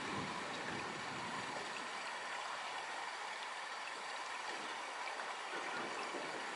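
Steady rain falling in a thunderstorm, an even hiss with no thunder clap.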